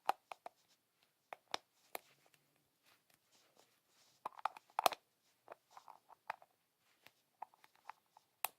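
Small hard-plastic parts of a capsule toy figure clicking and scraping as they are pressed and fitted together by hand, with a quick cluster of clicks about four to five seconds in.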